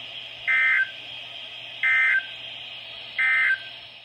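NOAA Weather Radio sending the SAME End of Message code through a weather radio receiver: three short, identical digital data bursts about 1.3 seconds apart over steady receiver hiss. The bursts mark the end of the Required Weekly Test broadcast.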